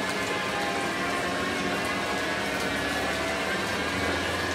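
Lathe running with flood coolant spraying and splashing over the spinning workpiece as the tool radiuses its outside corners: a steady rush of coolant over the machine's hum.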